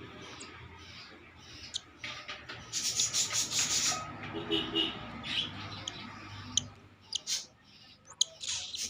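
A hand-fed cockatiel chick giving raspy, hissing begging calls in short rasps, thickest a few seconds in, with a few sharp clicks near the end.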